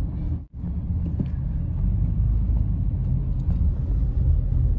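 Steady low rumble of a Honda car driving, heard from inside the cabin: engine and road noise. The sound drops out for a moment about half a second in.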